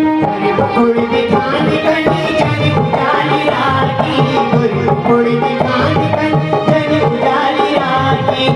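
Kumaoni folk song music in an instrumental passage: a melody instrument over a steady hand-drum beat.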